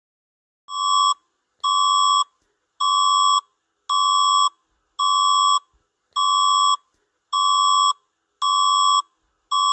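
Electronic alarm tone beeping in a steady, even series, about one beep a second, each beep just over half a second long. It starts just under a second in and sounds nine times, as the alert signal of a mock emergency broadcast.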